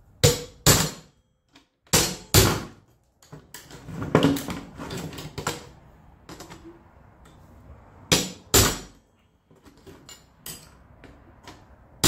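Hammer striking a steel punch to drive the hinge pin out of a 1955 Willys truck inner door latch. Sharp metal-on-metal blows come mostly in pairs, with a run of lighter taps in the middle.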